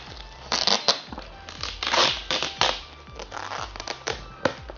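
Gift wrapping being crinkled and torn open: a run of sharp crackling rustles with a few louder rips.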